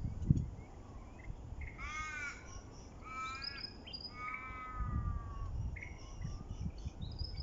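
Three drawn-out calls from a larger bird about a second apart, the last the longest, over small birds chirping, with wind gusting on the microphone.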